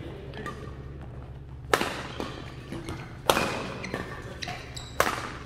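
Badminton rackets striking a shuttlecock three times in a rally, about a second and a half apart: each hit is a sharp crack that echoes through a large hall, with lighter taps between.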